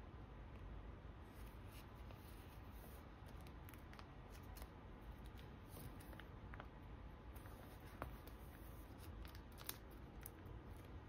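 Faint plastic crinkling and light ticks as sleeved photocards are handled and slid into the clear plastic pocket pages of a ring binder, with two sharper clicks in the second half.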